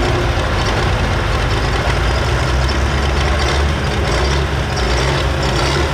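John Deere 4455 pulling tractor's six-cylinder diesel idling steadily with a deep low rumble, the tractor at rest after its pull.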